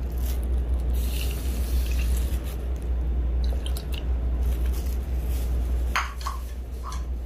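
Water poured from plastic measuring cups into a saucepan of dry couscous, splashing and trickling onto the grains, with a few light knocks near the end.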